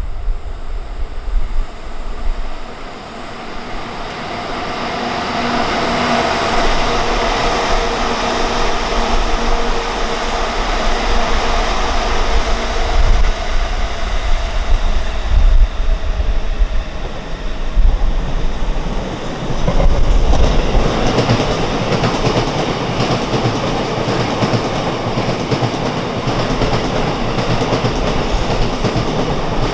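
Freight train of an EF65 electric locomotive hauling new Tokyo Metro subway cars rolling along the track, steel wheels clicking and rattling over the rails. The sound builds after a few seconds and grows denser and louder from about twenty seconds in.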